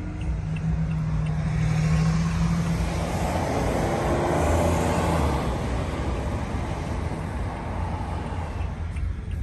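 A vehicle driving, heard from inside the cabin: a low engine hum with road noise that swells to a peak about four to five seconds in and then eases off.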